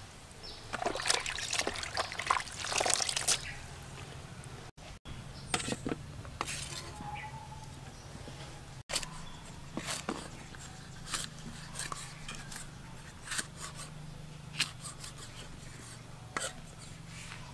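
Food-preparation handling noise: a busy run of wet rustles and clicks as wet food is worked by hand in a plastic colander, then scattered sharp taps and clicks of a knife and of produce set down on a steel tray and a wooden chopping board. A faint steady low hum runs underneath.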